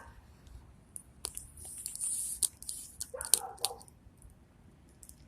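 Rubber-cemented tire plug on its insertion tool being forced into a puncture in the tire tread: scattered clicks and squishy rubbing of rubber against rubber, with a brief high hiss about two seconds in.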